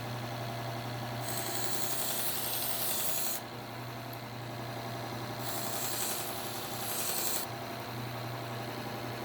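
Bucktool slow-speed bench belt sander running with a steady hum, as a knife edge is drawn across the moving belt twice, each pass a hissing rasp of about two seconds.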